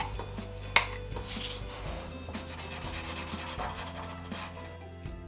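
Felt-tip pen scribbling back and forth on card to colour in a drawing, a scratchy rubbing in quick repeated strokes that is busiest in the middle. A single sharp tap comes about a second in.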